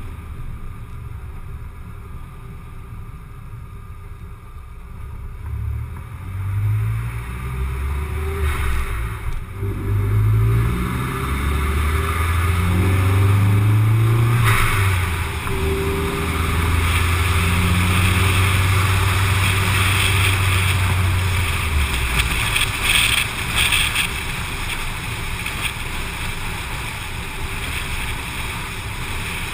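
Car driving along a road, heard through an outside-mounted action camera: a steady rush of wind and tyre noise, with a low engine hum that climbs in pitch in several steps over the first half, holds steady, then fades out about three-quarters of the way through.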